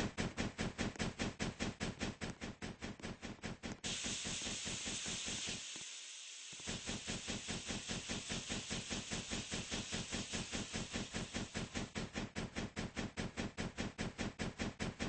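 Steam locomotive chuffing in a quick, even beat, about six exhaust beats a second. For about three seconds in the middle the beat gives way to a steady hiss of steam, then the chuffing resumes.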